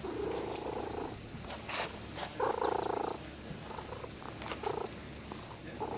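Orange-and-white cat purring close up, in spells of about a second with short pauses between, loudest near the middle.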